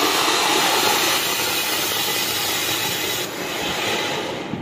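Ground fountain firework hissing steadily as it sprays sparks, then dying away sharply at the very end.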